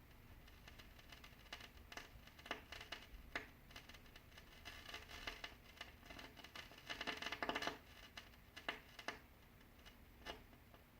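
Irregular crackling and popping static from a stereo system's speakers, caused by a Kenwood GE-52B graphic equalizer: scattered single pops, with a denser run of crackle about seven seconds in. It is an intermittent fault that comes and goes on its own and is not cured by good RCA cables or by wiggling the connections.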